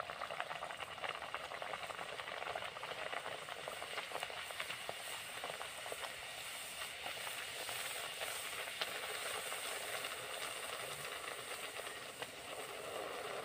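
Spinach puri deep-frying in hot oil in an aluminium kadhai: a steady sizzle with fine crackling throughout, as the puri puffs up.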